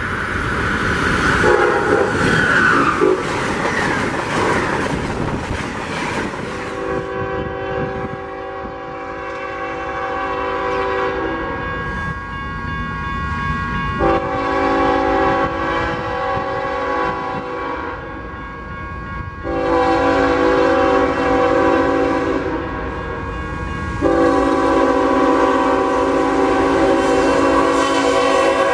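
Union Pacific freight locomotive's multi-chime air horn sounding four blasts of a chord, the third shorter than the others, in the long-long-short-long pattern of a grade-crossing signal as the train approaches. The horn is preceded by several seconds of broad rushing noise.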